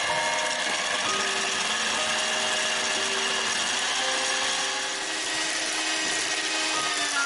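Electric hand mixer's motor whirring steadily as its metal beaters whip cream in a glass bowl until thick. Near the end the whine slides down in pitch as the mixer slows.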